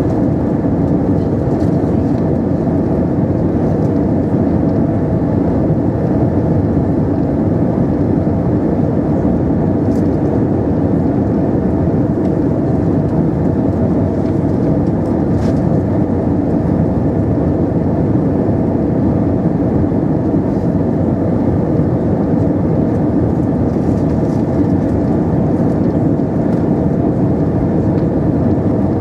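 Steady cabin noise inside an Airbus A320-232 on final approach, heard from a seat over the wing: a constant low rumble of its IAE V2500 engines and the airflow over the fuselage, holding an even level throughout.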